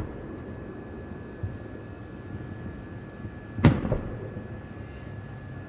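A single firework bang about two-thirds of the way through, sharp and loud, with a short echoing tail, after a fainter thump about a second and a half in. Under it, a steady low background hum with a thin high tone.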